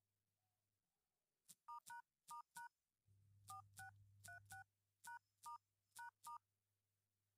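Phone keypad dialing tones: about a dozen short two-note touch-tone beeps, one per key pressed, each with a faint click, coming in quick groups.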